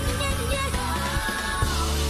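Live band music in an R&B-pop style: electric guitar, bass and drums playing, with a woman singing lead.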